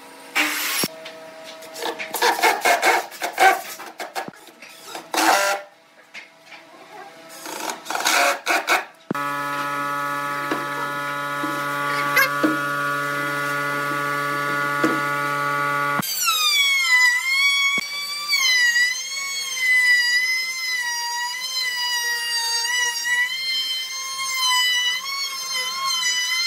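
Knocks and clatter of solid pine parts being fitted and handled, then a steady hum. About halfway through, a high whine sets in whose pitch wavers unevenly, typical of an electric router loaded and unloaded as it cuts grooves into wood.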